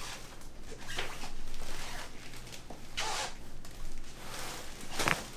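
Fabric rustling: several brief swishes about a second or two apart, with a sharper thump near the end, over a faint steady hum.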